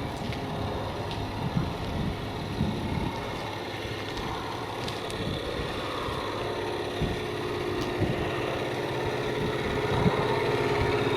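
Mini excavator engine idling steadily, with a few light clicks. The owner says it sounds a little clicky and takes it to be due for a valve adjustment.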